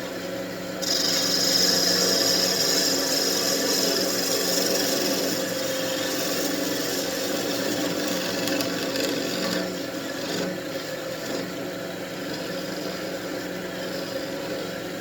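Wood lathe running with a steady motor hum, and a tool hissing against the spinning wooden wand blank. The hiss starts about a second in, is loudest for the next few seconds, and eases off about ten seconds in, leaving the lathe hum.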